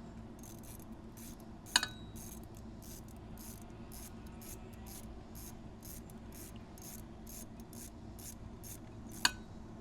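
Faint ratchet clicking from a socket wrench in light, irregular ticks as it backs out a motorcycle's 12 mm oil drain bolt after breaking it loose, with a sharper click about two seconds in and again near the end. A steady low hum runs underneath.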